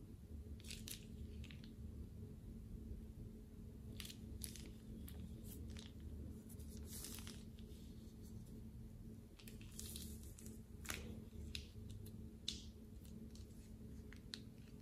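Quiet, irregular crinkles and soft squishes of a plastic piping bag being squeezed as it pipes slime out in thin strands, over a faint steady hum.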